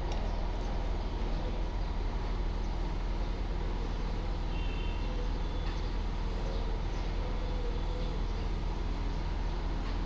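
Steady low rumble of road and vehicle noise, even throughout, with no distinct events.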